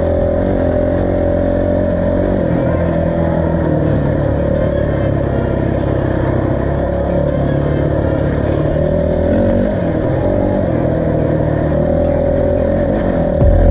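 Motorcycle engine running while riding, its pitch shifting slightly as the speed changes.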